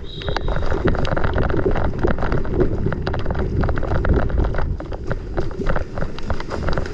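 Wind buffeting the microphone with a heavy rumble, over many irregular sharp clicks and knocks, as of footsteps and gear moving while running.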